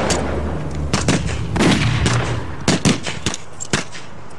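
A string of gunshots, about seven or eight sharp cracks at uneven intervals, over a low steady rumble.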